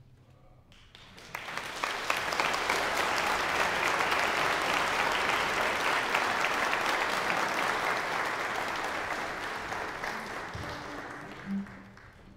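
Audience applauding, rising about a second in and holding steady, then fading out near the end.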